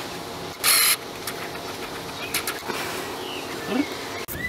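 Outdoor background with birds chirping now and then. A short, loud hiss lasting about a third of a second comes just under a second in.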